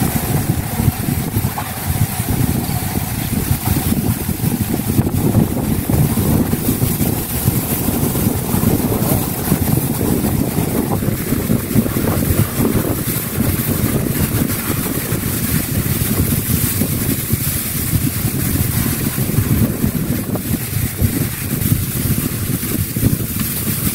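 Strong wind buffeting the microphone: a loud, uneven low rumble with a faint hiss of wind above it.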